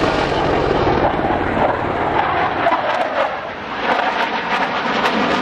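Loud, steady jet engine noise from a passing F-14 Tomcat, easing briefly about three and a half seconds in.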